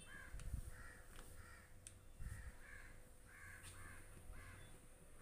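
Faint, harsh bird calls repeating in pairs about once a second, with a couple of soft knocks of a spoon against the pan.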